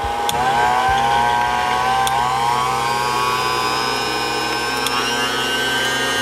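Electric hand mixer whirring as its beaters whip raw egg whites in a ceramic bowl. The motor's whine rises in pitch as it speeds up, just after the start, about two seconds in and again about five seconds in.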